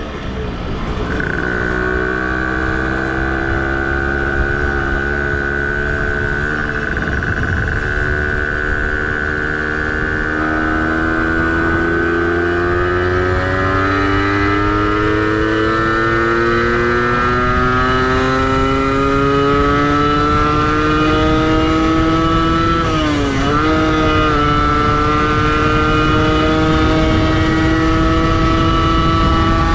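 Tuned 70cc Athena two-stroke engine of a 1967 Zündapp 517 moped running hard at high revs, its pitch climbing steadily as speed builds. About three-quarters of the way through the pitch dips briefly, then holds high.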